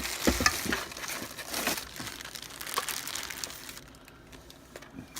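Packaging crinkling and rustling as the charger is handled and unwrapped, with a run of sharp crackles in the first couple of seconds, then quieter handling.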